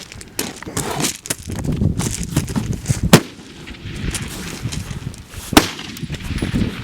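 Two suppressed rifle shots, sharp cracks about two and a half seconds apart, with rustling and handling noise between them.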